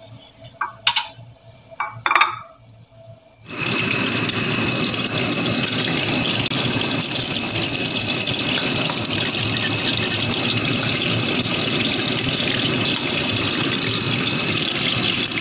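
Battered banana pieces deep-frying in hot oil in a wok: a loud, steady sizzle that starts suddenly about three and a half seconds in, after a few light knocks and clicks.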